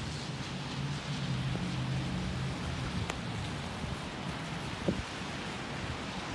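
Rainy downtown street ambience: a steady hiss of rain and wet traffic. A low vehicle engine hum swells between about one and three seconds in, and there are two short sharp ticks.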